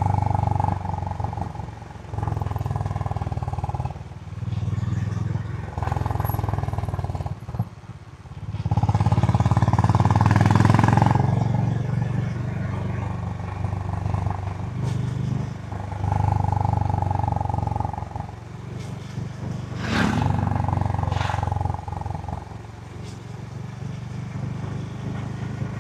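Honda GB350's 348 cc air-cooled single-cylinder engine through its stock exhaust while riding, the throttle opening and closing in spells of a few seconds with short drops in between. A loud rush of noise swells about ten seconds in.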